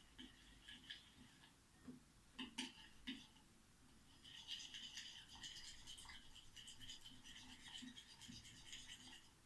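Faint, fast scratchy swishing of a glue, water and shampoo slime mixture being stirred until it foams. A few separate clicks come first, then the steady stirring starts about four seconds in.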